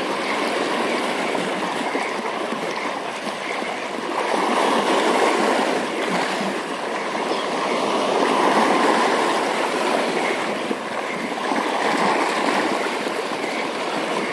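Steady rush of moving water, swelling louder and easing off every few seconds.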